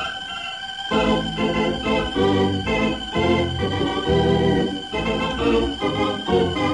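Organ music bridge marking a change of scene in an old radio drama: a held high chord, then from about a second in a run of short, repeated chords under a sustained high note.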